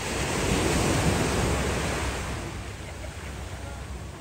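Wind and surf at the shore: a rush of noise that swells in the first second, then fades over the next couple of seconds, over a steady low rumble of wind on the microphone.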